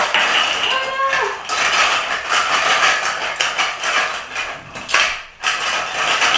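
Toy fruit pieces clattering and knocking together as they are stirred around in a bowl, a continuous jumble of rattles. A short voice sounds about a second in.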